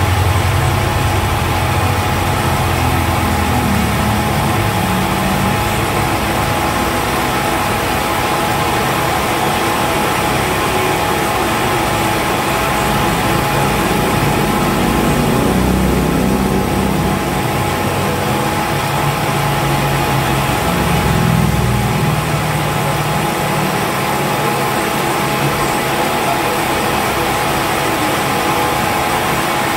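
Milling machine running steadily with an even whine as its end mill cuts into the crown of an aluminium piston, machining a valve relief; a lower rumble swells and eases a few times as the cut is fed.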